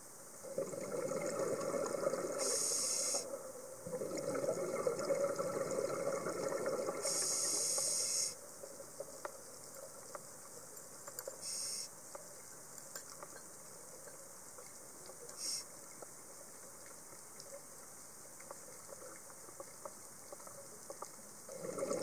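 Scuba diver breathing underwater through a regulator: two long rushes of exhaled bubbles in the first eight seconds, each with a high hiss, then quieter water with short bursts and scattered faint clicks, and another rush of bubbles starting near the end.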